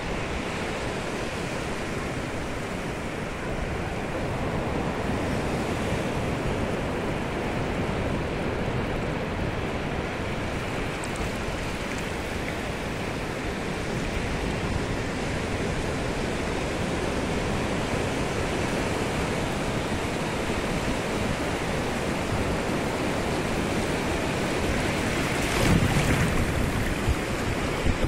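Shallow sea surf washing in over sand at the water's edge: a steady rush of small breaking waves and swash, swelling and easing, with a louder rush near the end.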